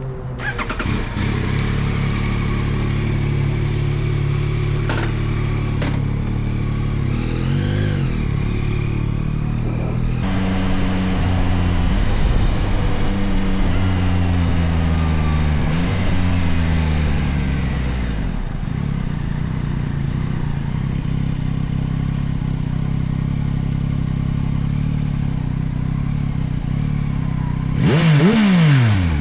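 The 890 cc CP3 inline-three engine of a 2024 Yamaha Tracer 9 GT+ running under way. Its note changes in steps through several gear changes between about 10 and 18 seconds in, then settles into a steady cruise. Near the end a brief, louder rev falls away quickly.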